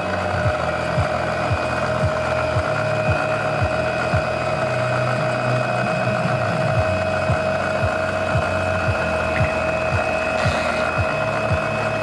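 A steady machine-like hum with a high whine, over a low, evenly repeating pulse of about two to three beats a second.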